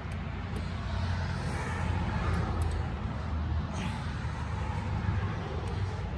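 Steady low rumble of road traffic, swelling slightly in the middle, with a few faint clicks.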